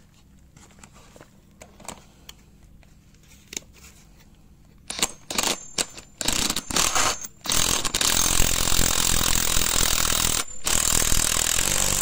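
Cordless impact wrench running the top-mount nut down onto a BMW E36 shock absorber's rod. It starts with a few short trigger bursts from about five seconds in, then runs in two long spells split by a brief pause near the end. Before that there are a few faint handling clicks.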